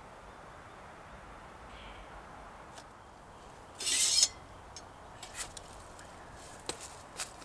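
Small hard objects being handled: a brief loud scraping rustle about four seconds in, followed by several light clicks and clinks, over a steady faint background hiss.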